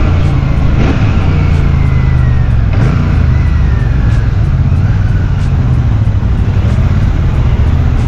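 Royal Enfield Shotgun 650 parallel-twin engine running hard on the move under acceleration, its pitch sliding down a few times as the revs fall back.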